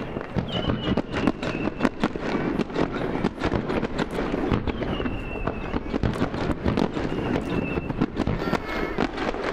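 Fireworks going off in rapid succession: a dense, continuous crackle of sharp pops and bangs.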